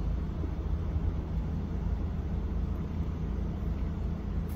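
Steady low hum of a car's idling engine, heard inside the cabin.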